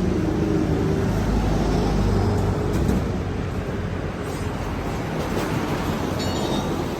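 Street traffic: a large vehicle's engine hums close by and fades away about three seconds in, leaving the steady noise of passing road traffic.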